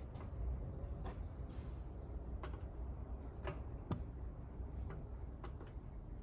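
Faint, irregular clicks from hand tools, about one a second, during work on a car's wheel hub bearing as it is eased in, over a steady low hum.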